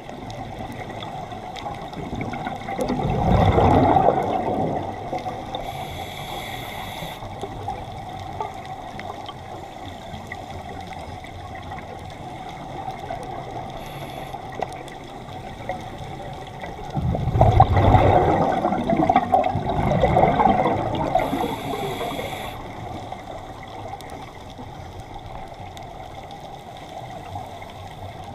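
Scuba diver's regulator breathing heard underwater: two loud gushes of exhaled bubbles, a short one a few seconds in and a longer one past the middle, each followed by a brief high hiss of the next breath, over a steady underwater hum.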